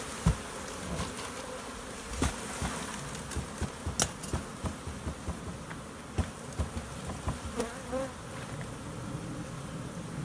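Honeybee swarm buzzing steadily around the hive box, with scattered knocks and thumps from handling, the sharpest about four seconds in.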